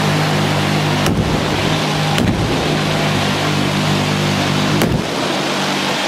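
Many machine guns firing at once in one sustained volley, the rapid shots merging into a continuous roar. There are sharper cracks about one and two seconds in, and another just before the steady fire drops away near the end.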